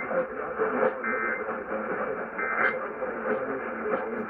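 EAS end-of-message data bursts over a distant AM radio signal: short raspy two-tone digital bursts, two of them about a second and a half apart, through steady static and a faint jumble of other voices.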